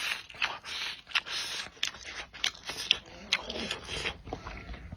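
Close-miked eating: a person chewing and biting food, a string of short, crunchy, wet mouth sounds about two or three a second.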